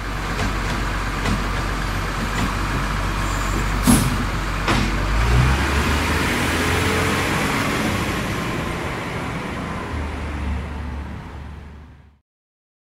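Heavy truck engine running with a steady low rumble. A sharp short sound comes about four seconds in and a smaller one just after, then the sound fades and stops shortly before the end.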